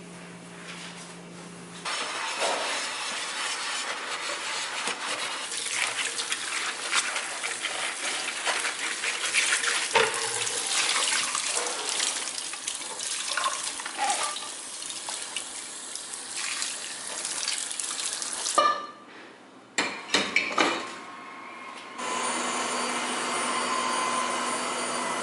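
Kitchen tap running and splashing onto a nonstick pancake pan as it is rinsed and scrubbed, with occasional knocks of the pan against the sink. Near the end, a robot vacuum runs with a steady motor whine.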